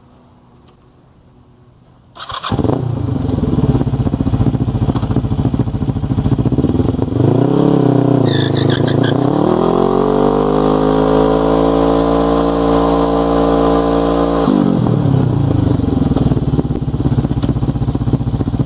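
Kawasaki GPZ500S parallel-twin motorcycle engine comes in loud about two seconds in and runs, then is blipped up and down with a few short high squeaks. It is then revved up and held at high revs for about five seconds for a burnout before dropping back to a lower, steady run.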